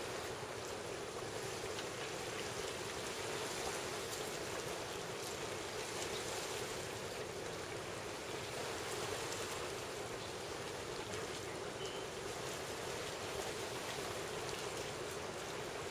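Steady rushing wash of ocean surf, with faint splashes from the waves now and then.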